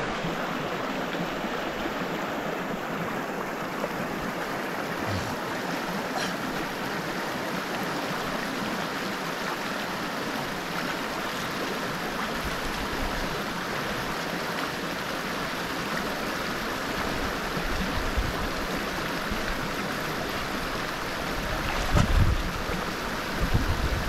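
Shallow river water rushing steadily over a muddy bed. A few low rumbles near the end.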